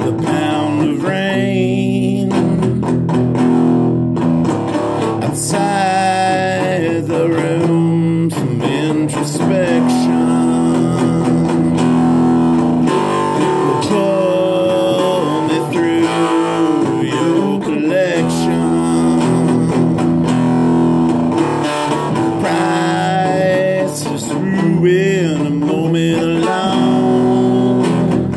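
A man singing while strumming chords on an electric guitar.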